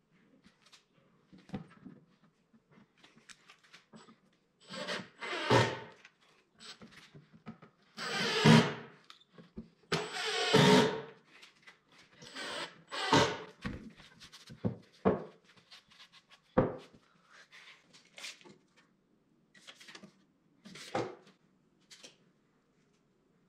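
Wooden drawer parts being handled and fitted together: scattered knocks and rubbing of pine boards, with several louder noisy bursts, each up to about a second and a half long.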